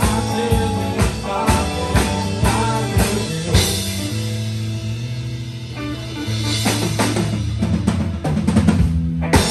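Live rock band of drum kit, electric bass and guitars playing an instrumental passage. The drums keep a steady beat of about two hits a second. A cymbal crash comes about three and a half seconds in, into a held chord. A run of drum hits then builds to a final crash near the end, as at the close of a song.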